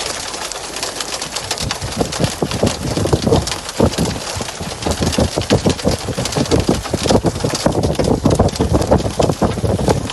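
Heavy storm rain pelting down hard: a dense, irregular patter of strikes over a rushing hiss, growing heavier from about two seconds in.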